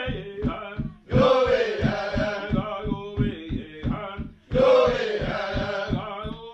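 Background music: male voices chanting a song over a steady drum beat of about four strokes a second.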